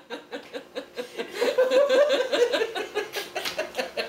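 Two people laughing hard together in quick, rhythmic bursts of laughter, loudest a second or two in.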